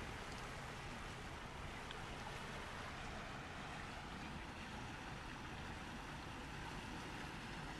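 Faint, steady rushing background noise with no distinct events: open-microphone ambience.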